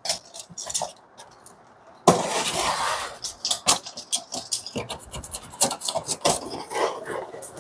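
Shipping box and its packing being opened and handled: a few scattered clicks, then from about two seconds in a sudden continuous rustling and scraping with many sharp clicks and knocks.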